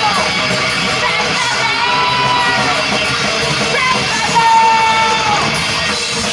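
Live hard rock band playing loud with guitar and drums, a high voice holding three long notes that fall off at the end of each.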